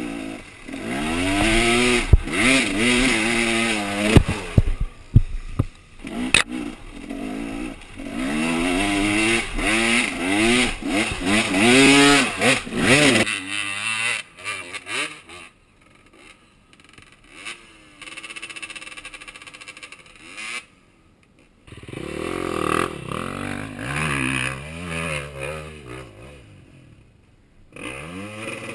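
Enduro dirt-bike engines revving hard, the pitch rising and falling again and again, with several sharp knocks in the first half. A little before halfway it drops to quieter revving from bikes further off, and cuts out for about a second about two thirds in.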